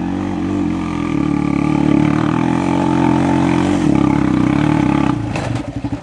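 An off-road vehicle engine running hard under load on a steady note. Shortly before the end the note breaks into a quick stutter of pulses as the engine drops off.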